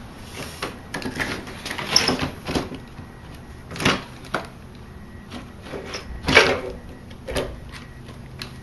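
Irregular clicks and knocks of the plastic housing and back cover of an automatic ice maker being handled and worked loose, with the loudest knock about three-quarters of the way through.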